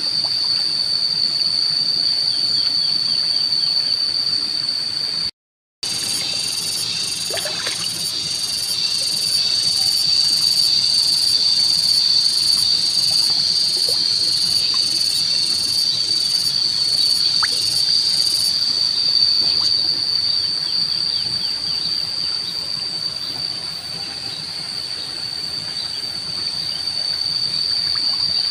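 Insects shrilling in one steady, unbroken high tone, joined for about twelve seconds in the middle by a second, higher insect call pulsing about twice a second. The sound cuts out completely for half a second about five seconds in.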